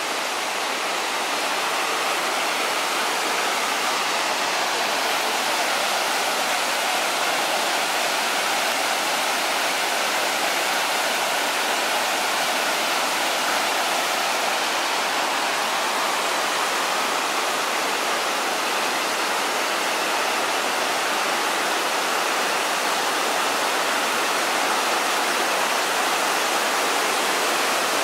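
Large tiered waterfall pouring over rock ledges: a steady, unbroken rush of falling water.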